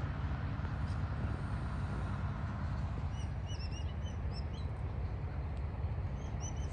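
TasRail TR-class diesel-electric locomotives running at idle with a steady low rumble. A small bird calls in quick runs of short falling chirps about halfway through and again near the end.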